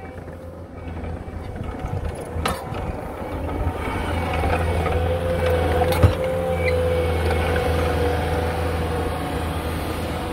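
Cat compact track loader's diesel engine running under load as the machine drives and scrapes over loose dirt, growing louder over the first few seconds, with a steady whine. There is a sharp clank about six seconds in.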